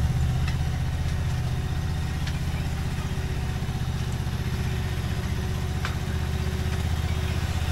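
Mini loader's engine running steadily with a low, even drone as the small machine drives slowly forward with its bucket down.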